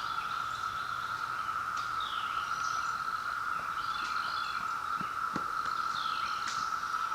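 Chorus of periodical cicadas: a steady, unbroken high drone. Birds chirp briefly over it now and then.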